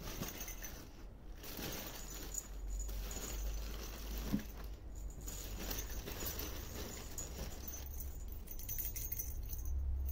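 Soft rustling and light tapping as a kitten noses and paws through satin fabric and loose plastic balls in a box.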